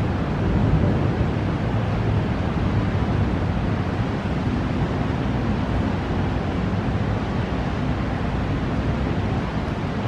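Steady rush of thunderstorm wind blowing over the camera microphone, with a heavy low rumble and no single loud crack.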